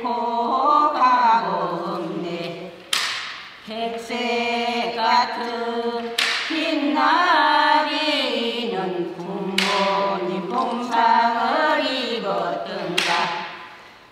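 Several elderly Korean women singing a traditional folk song together, unaccompanied, in held, gliding phrases of about three seconds with short breaks between them.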